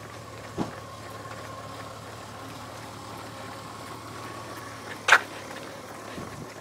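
Honda Gold Wing motorcycle's flat-six engine idling with a low steady hum. One short sharp sound about five seconds in is the loudest thing heard.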